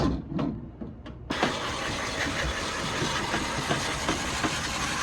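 A few light knocks, then a little over a second in a vacuum cleaner switches on and runs steadily with a loud rushing hiss.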